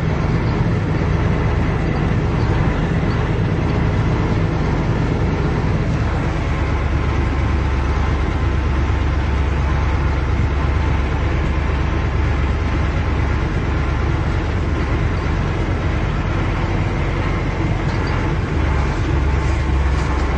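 Engine and road noise of a truck or similar large vehicle, heard from inside its cab while driving, a steady deep drone with no clear changes.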